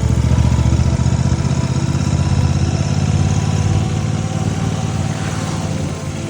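Royal Enfield Classic 650's parallel-twin engine running steadily with an even, rumbling exhaust beat rather than a single-cylinder thump.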